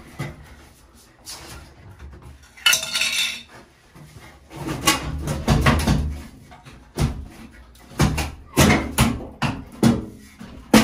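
Mirrored medicine cabinet being shifted and worked loose from the wall: irregular clanks, knocks and rattles, with a short scrape about three seconds in and a sharp knock at the end.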